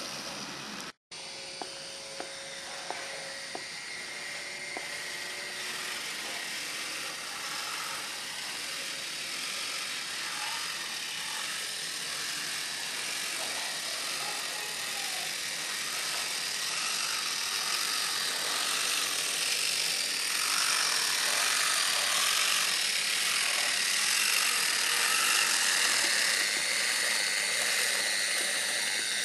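Small electric motor of a model railway track-maintenance vehicle whirring as it runs along the track. The whir grows louder as the vehicle comes close.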